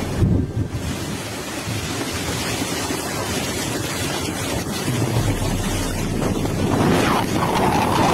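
Steady rushing roar of river water and spray thrown up by an underwater bomb detonation falling back, with wind buffeting the microphone.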